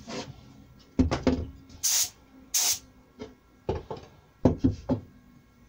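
Hollow knocks of an MDF drawer box being handled and tipped onto its side on a workbench: a few about a second in and a quicker run near the end. Between them, two short hisses of a spray gun.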